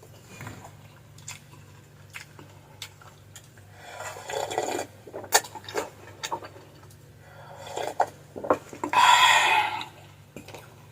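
Close-up eating sounds from a meal of fried fish and clam soup: scattered clicks of utensils on dishes and chewing, with two louder stretches of noise about four and nine seconds in.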